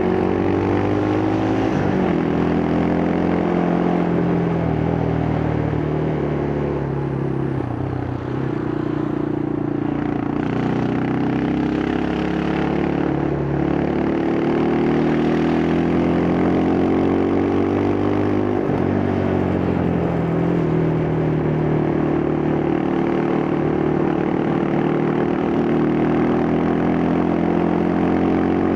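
Yamaha Scorpio's single-cylinder four-stroke engine running through its stock exhaust while riding. The engine note climbs and drops back a few times, near the start, about a third of the way in and again past the middle, then climbs again.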